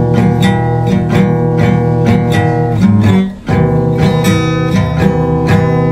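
Music: an instrumental passage of a slow ballad, a guitar strumming steady chords with no singing, and a brief break just past halfway.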